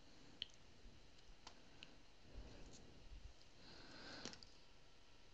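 Near silence with a few faint, light clicks and a soft rustle about four seconds in: small handling noises from a plastic resin squeeze bottle and a wooden skewer over a silicone mold.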